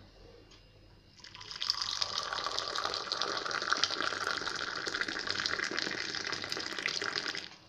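Tea poured in a steady stream from a metal teapot held high into a drinking glass, starting about a second in and stopping just before the end.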